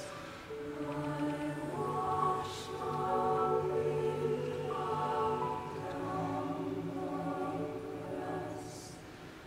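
Mixed youth choir singing slow, held chords in several parts, with soft hissing consonants between phrases. The singing grows quieter near the end.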